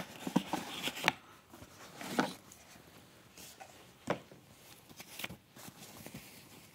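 Unboxing handling noise: a cardboard box and non-woven fabric pouches being handled, with soft rustling and a handful of separate sharp clicks and knocks, busier in the first couple of seconds and sparser after.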